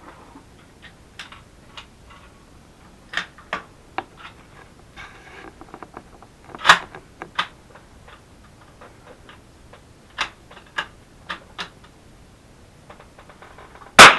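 Scattered small clicks and knocks, one louder about six and a half seconds in, then a single sharp shot from a CZ 457 .22 LR bolt-action rifle near the end, the loudest sound, with a short ring after it.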